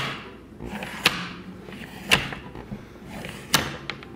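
Wooden hydraulic worm toy, driven by water-filled syringes, advancing along its notched plywood track in sharp wooden clacks, four of them about every second or so, each followed by a short hiss.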